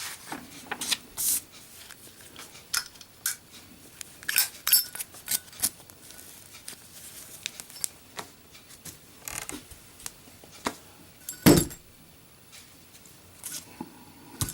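Zippo lighter being handled for a drop test: a scattered series of sharp metallic clicks and clinks from the lid and case. The loudest click comes about eleven and a half seconds in.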